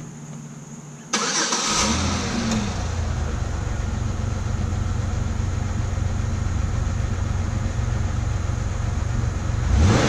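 2004 Pontiac Grand Am engine starting about a second in, with a short crank and catch, then idling steadily. It is the first test of the newly replaced fuel pump. The revs rise briefly near the end.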